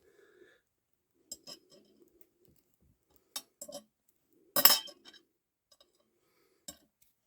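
Small metal motorcycle clutch parts clinking and clattering as they are handled: the clutch springs being picked up for measuring. The loudest clatter comes about four and a half seconds in.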